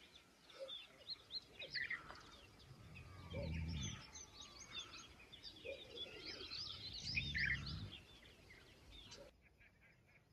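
Many small birds chirping and calling over one another, faint, with a short low hum twice; the birdsong cuts off suddenly about nine seconds in.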